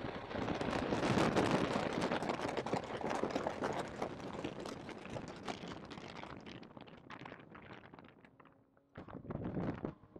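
Distorted, crackling noise of a Porsche 911 GT3 at high speed on track, overloading a poorly placed in-car microphone. It fades as the car brakes hard from about 146 mph down into second gear, then flares up again briefly near the end.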